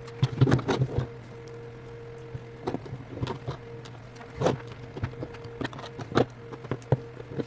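Small clicks and taps of hand tools working against an iPhone 8 while its screen is pried off: a quick cluster in the first second, then single taps every second or so, over a steady low electrical hum.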